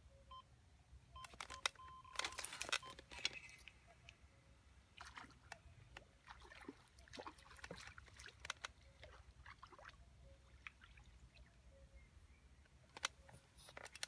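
Electronic carp-fishing bite alarm bleeping as a fish takes the bait. Then comes the clicking and rattling of the rod, reel and tackle as a small fish is played in, with light splashing as it skims across the surface.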